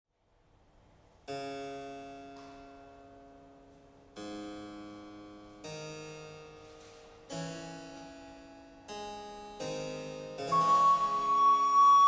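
Harpsichord playing a slow series of chords, each struck and left to ring away. About ten seconds in, an alto recorder enters with a long held note over the harpsichord, much louder than the chords.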